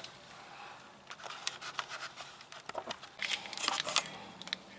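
Scattered light scraping, rustling and clicking from handling automotive wiring, busiest about three to four seconds in.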